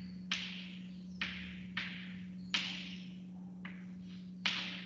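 Chalk writing on a blackboard: about six sharp tapping strokes, each trailing off into a short scratch, over a steady low hum.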